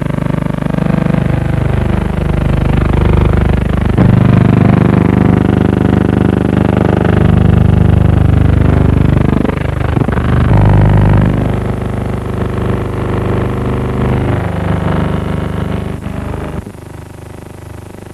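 Early racing car engines running hard and passing at speed, their pitch falling as they go by. The sound drops suddenly to a quieter engine drone near the end.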